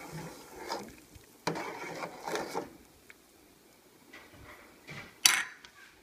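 Ladle stirring soup in a metal stockpot, scraping and swishing in uneven bursts for the first few seconds, then a sharp knock near the end.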